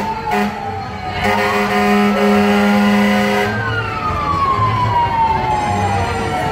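Fire engine siren slowly winding down in pitch and then climbing back up, twice, with a steady horn blast lasting about two seconds in between.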